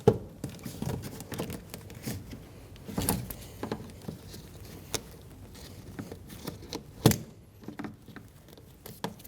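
Plastic door trim being pried off and handled with a trim tool: scattered clicks and knocks of plastic clips and panel, sharpest just after the start, about three seconds in and about seven seconds in.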